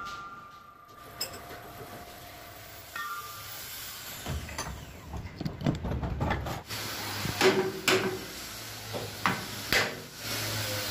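Metal drive-shaft parts being handled and knocked at a lathe: irregular metallic clanks and knocks, sparse at first and busier from about halfway, with a low hum underneath in the second half.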